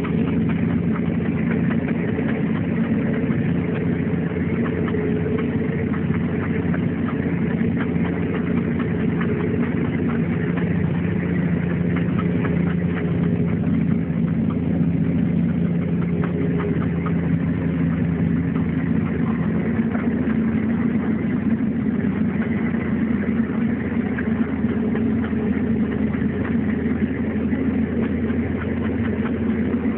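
Case IH Puma 140 tractor's six-cylinder diesel engine running steadily, heard from inside the cab.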